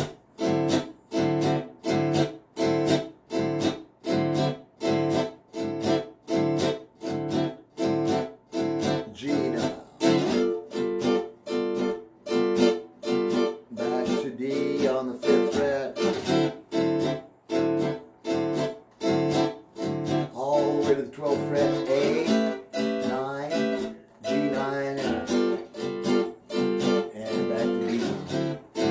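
Acoustic-electric guitar strummed with short, choppy chord strokes at about two a second in a steady rhythm, playing a 12-bar blues progression in D made up entirely of movable ninth chords.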